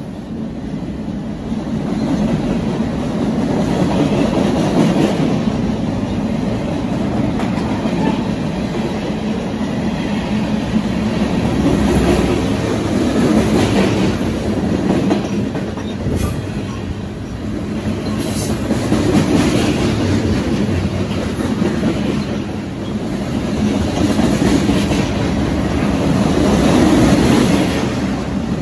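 Freight train cars (boxcars and tank cars) rolling past close by: a steady, loud rumble of steel wheels on the rails that swells and eases as the cars go by.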